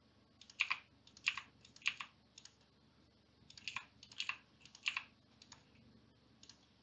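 Faint clicks of computer keyboard keys and mouse buttons: about a dozen short clicks, irregularly spaced and often in quick pairs, as keys are pressed and the mouse is clicked.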